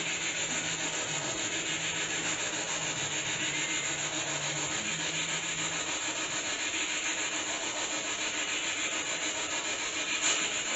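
Steady hiss with a faint low hum that stops about six seconds in.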